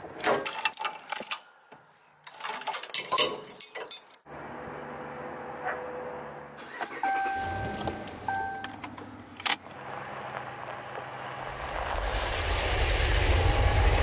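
Metal clicks and clanks of a trailer hitch coupler being latched onto the ball, then inside a Ram pickup a held electronic chime and the engine starting and idling after a push-button start. Near the end, a rising rush as the pickup and trailer roll past at ground level.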